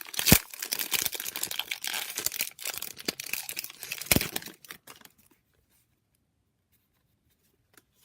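A trading-card pack wrapper being torn open and crinkled, a dense crackling rustle with a few sharp snaps. It stops about five seconds in.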